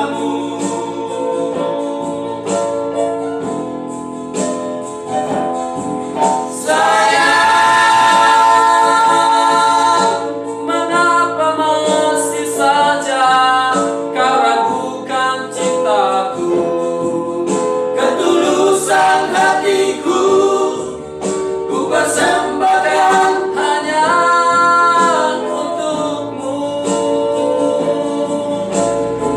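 Male vocal trio singing in harmony, accompanied on an electronic keyboard, with a long loud held chord a quarter of the way in.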